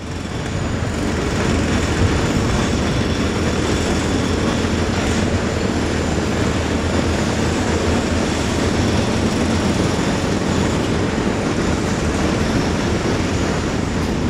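Steady low rumble of a large construction site, with heavy diesel machinery such as excavators and trucks running, and no single knock or event standing out.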